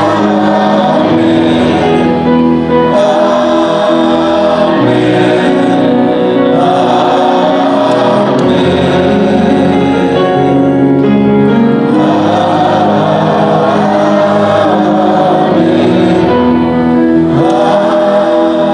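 A congregation sings a slow worship song together, with instrumental accompaniment under long held notes.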